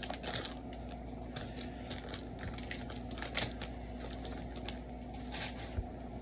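1990 Fleer basketball trading cards being thumbed through one by one: quick, irregular papery clicks and slides of card stock against card stock.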